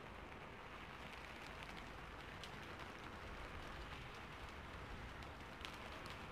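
Steady, faint rain falling, with a few sharper drop ticks scattered through it; the clearest comes near the end.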